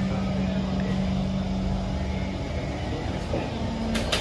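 Kawasaki C151 MRT train, heard from inside: a steady low rumble with a steady hum that stops about halfway through, and a few short sharp hissing clicks near the end.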